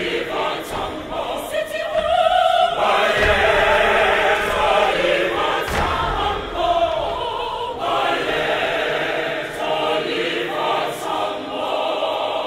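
Large mixed choir of women's and men's voices singing together in full voice.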